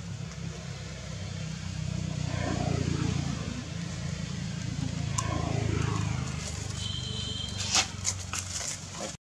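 Low engine rumble of passing motor traffic, swelling twice. A short, sharp crackle comes near the end.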